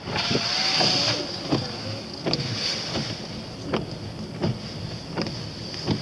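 Car cabin noise while driving: a steady hum of road and engine, with a short regular tick about every three-quarters of a second.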